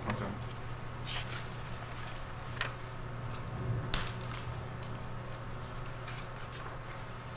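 Quiet courtroom room tone: a steady low hum with a few faint clicks and light handling noises, and one sharper click about four seconds in.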